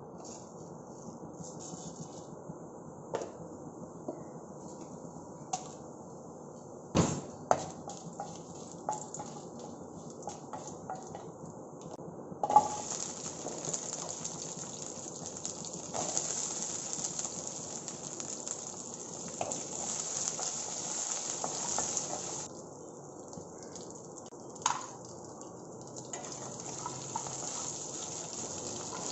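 Whole spices and small onions sizzling and frying in hot oil in a stainless steel pan, stirred with a wooden spatula. A few sharp knocks of ingredients and utensils against the pan; the loudest comes about twelve seconds in, after which the sizzling gets much louder.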